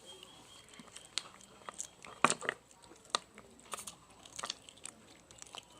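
Mouth chewing and biting on chicken bones and leftover meat, heard close: irregular crisp crunches and wet clicks, the loudest crack a little past two seconds in.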